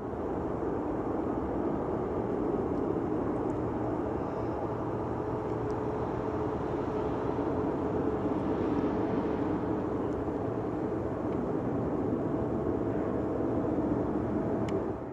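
Jet airliner engines running steadily: an even rumble with a faint steady hum in it.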